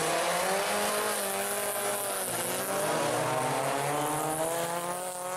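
Engines of two rear-wheel-drive folkrace cars running hard together, their revs rising and falling as they go through a corner and onto the straight.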